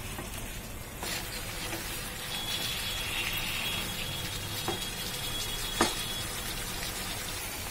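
Chicken pieces sizzling steadily in a kadai over a high flame, with a few sharp knocks of the wooden spatula against the pan.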